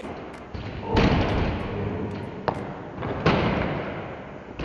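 Two dull thumps about two seconds apart, with a short sharp click between them, over a steady low rumble.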